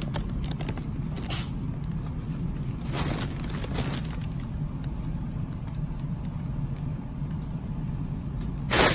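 Plastic air-pillow packaging crinkling and rustling as a kitten pushes through it, in scattered crackles with the loudest near the end, over a steady low hum.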